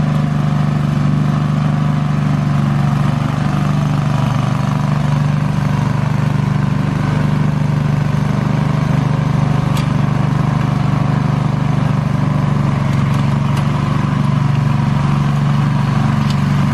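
Engine of a 1970 Sears SS14 garden tractor running steadily under load as the tractor pulls a disc harrow through loose garden soil.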